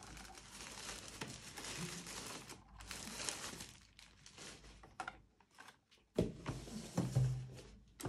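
White paper packing wrap crinkling and rustling as it is pulled off a robot vacuum in its cardboard box. This is followed by a few knocks and a dull thump in the last two seconds as the robot is lifted out and set down on the table.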